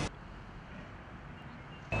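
Faint, steady background noise with nothing distinct in it. Just before the end it cuts abruptly to louder outdoor ambience carrying a steady low hum.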